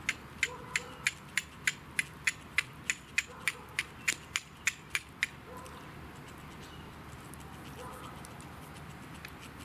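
A piece of chert striking a straight carbon-steel fire steel in quick, even blows, about eighteen sharp clicks at roughly three a second, stopping about five seconds in: flint-and-steel strikes throwing sparks onto char cloth.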